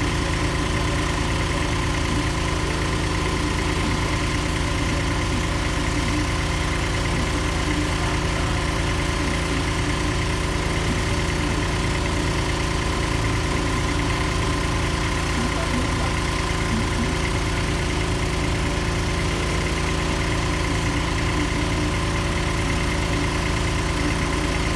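Engine of a small trailer-mounted borehole drilling rig running steadily at an even speed.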